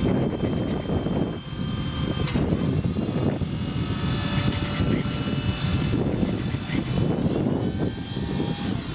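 An engine running steadily with many held tones, over an uneven low rumble of wind on the microphone.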